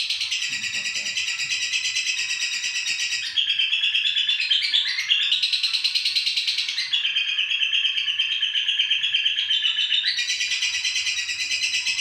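Female lovebird chattering non-stop in a fast, high-pitched, unbroken trill, shifting to a new phrase every few seconds.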